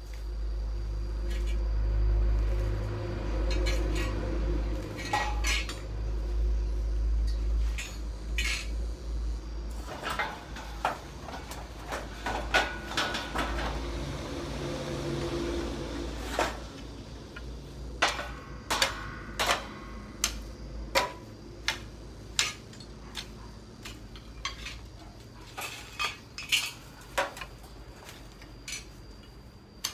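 Scrap metal clinking and knocking as yard debris is worked over with a long-handled tool: a run of sharp separate knocks that grows busier in the second half. A low rumble fills roughly the first third.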